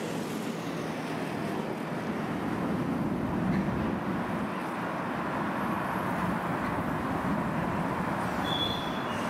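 Freight train of tank-container and container wagons rolling past, a steady noise of wheels on rails as the last wagons pass.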